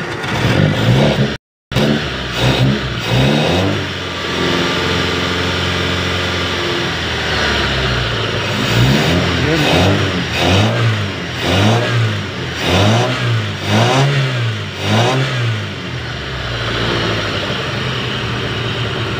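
Mitsubishi Lancer four-cylinder carbureted engine running just after a carburetor overhaul. It idles, is revved in a series of quick blips about once a second in the middle, then settles back to a steady idle near the end.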